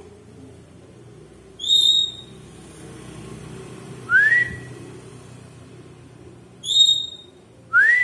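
Four short whistles in two pairs: a brief high note, then a couple of seconds later a whistle that rises and holds. The pair is heard twice.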